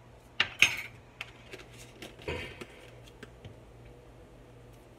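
Metal spoon clinking against a spice jar and plate as dried thyme is scooped out, with a few sharp clinks in the first second. About two seconds in comes a duller knock with a few light ticks after it.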